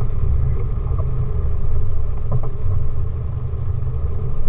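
Nissan Terrano I running at low revs while crawling over a wet, rocky off-road track: a deep, steady rumble, with a couple of faint knocks about halfway through.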